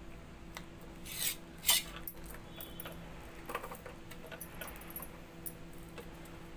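Bananas being peeled and handled on a steel plate: two short, loud, noisy scrapes a little over a second in, then softer clicks and rustles, over a faint steady hum.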